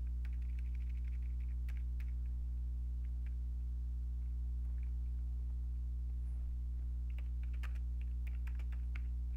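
Typing on a computer keyboard: a run of keystrokes in the first second or so, then a quicker run about seven to nine seconds in. A steady low electrical hum runs underneath.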